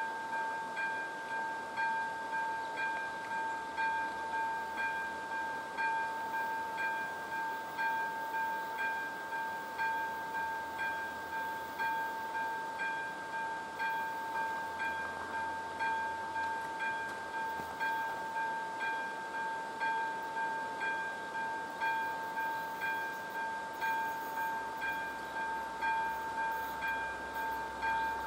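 Czech AŽD level-crossing warning bell ringing at about one electronic ding a second, each ring held until the next, signalling that a train is approaching and the crossing is closed.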